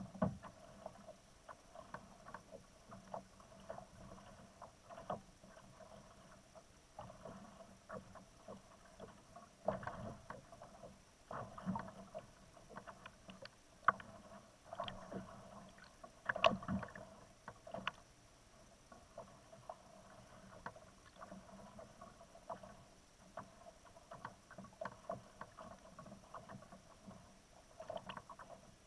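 Small waves lapping and slapping against a fishing kayak's hull, with irregular light knocks and splashes.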